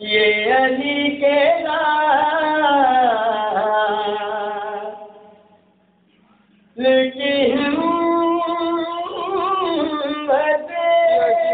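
A man's voice singing devotional verse unaccompanied into a microphone, in long, wavering held notes. There are two phrases, with a pause of nearly two seconds between them about halfway through.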